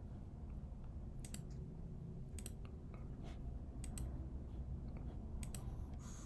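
Computer mouse clicking a few times, several clicks in quick pairs, over a faint low hum.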